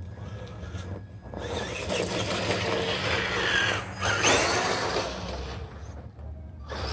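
HG P407 RC Toyota pickup truck driving over loose sandy dirt, its electric motor and gears whining and the tyres scrabbling. The sound builds from about a second and a half in, peaks with a few rising and falling whines as the truck passes close about four seconds in, then fades.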